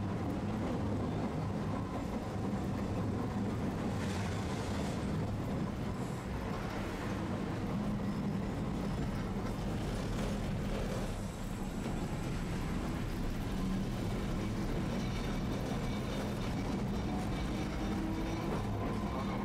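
Tosaden streetcar running, heard from on board: a steady rumble of wheels on rail with a constant motor hum, and a faint motor note rising near the end as the tram picks up speed.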